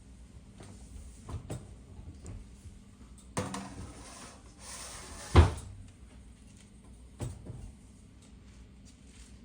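Household handling sounds: a few light knocks and a stretch of rustling, with one sharp, loud knock about five and a half seconds in and another knock near seven seconds.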